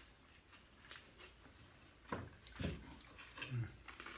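Quiet eating sounds: chewing and mouth noises with a few soft clicks and knocks of food and things being handled, the clearest ones a little past halfway.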